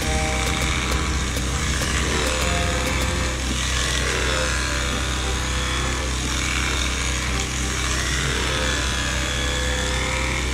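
Electric sheep shears running steadily, the motor humming as the cutter works through a sheep's wool fleece.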